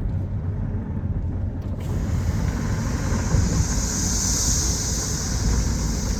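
Heavy wind rumble on the microphone. About two seconds in, a high, hissing buzz of a periodical cicada starts, swells and eases off.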